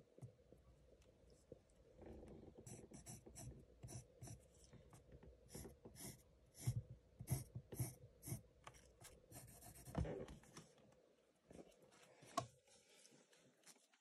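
A fine drawing tip scratching across paper as lines are drawn, in a quick run of short strokes that thins out after about ten seconds. One sharp tap near the end.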